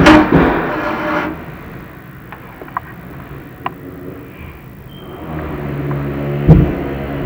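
Background noise of other trades working on the site. A loud burst at the start, a few sharp clicks in the quieter middle, then a low steady hum swells from about five seconds in, with a thump near the end.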